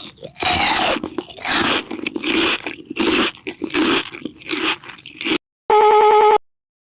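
Crunchy food being bitten and chewed close to the microphone in a string of loud, irregular crunches. Near the end comes a short buzzing electronic tone.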